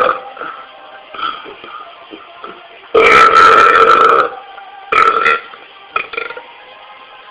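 A man burping: one long, loud burp about three seconds in, lasting over a second, then a shorter burp about two seconds later and a small one after it.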